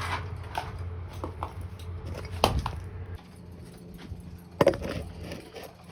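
Scattered clinks and knocks of hard objects being handled, the loudest about two and a half seconds in and again near the end, over a low hum that drops away about three seconds in.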